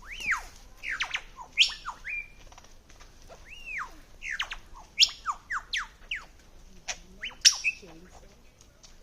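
Superb lyrebird singing a mimicry sequence of arching, falling whistles mixed with sharp upward-sweeping notes. The loudest sweeps come back about every two and a half seconds.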